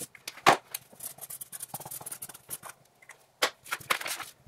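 Felt-tip marker scratching and squeaking across paper in quick strokes as it writes and underlines, with a sharp click about half a second in. Paper rustles near the end as the sheet is handled.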